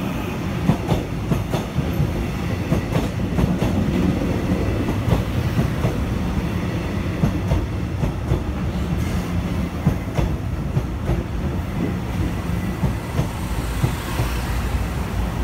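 Taiwan Railways stainless-steel electric multiple unit pulling into a station alongside the platform: a steady rumble with the wheels clicking over the rail joints.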